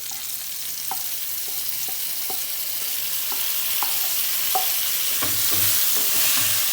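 Crabs frying in ghee and masala in a hot pan: a steady sizzle with scattered small pops, getting slightly louder, and the pan being stirred in the last couple of seconds.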